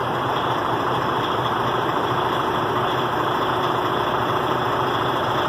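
DAF XF 105.460 truck's PACCAR MX six-cylinder diesel engine idling steadily.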